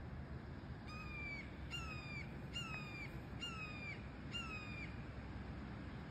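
Young red-tailed hawks giving a series of five high, thin begging calls, about one a second, each call sliding slightly down in pitch at its end.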